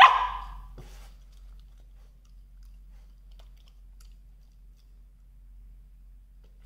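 A golden retriever puppy gives one short, sharp bark right at the start. After that come only faint small clicks and mouth noises while it noses at a treat.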